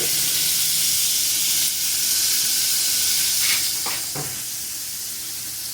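Garlic frying in oil and freshly added butter in a pan, a steady sizzle that eases slightly after about three and a half seconds as the butter melts.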